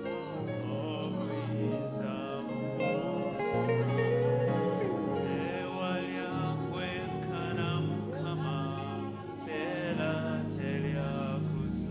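Live gospel worship music: a band playing sustained chords over a bass line, with a singer's voice gliding over it.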